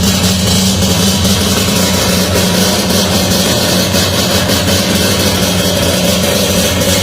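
Three-rotor rotary engine in a Toyota Starlet idling steadily, with no revving.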